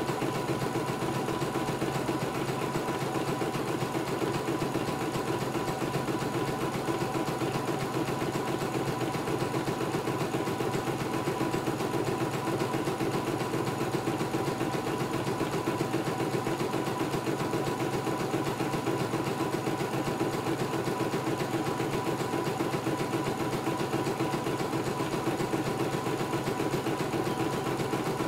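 CNY E900 computerized embroidery machine stitching a design, the needle running at a steady fast rate over a constant motor whine as the hoop shifts the fabric.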